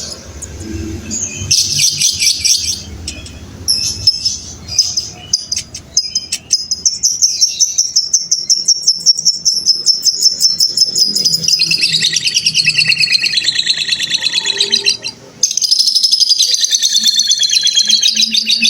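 Lovebird 'ngekek': scattered chirps and clicks at first, then, about a third of the way in, a long unbroken chatter of very fast repeated high notes. The chatter sinks a little in pitch partway through, stops briefly near the end and starts again.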